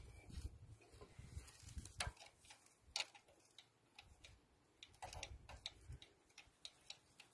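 Faint, irregular small clicks and taps of fingers handling the fuel injector pipes and brass fittings on a Lister SR3 diesel engine that is not running.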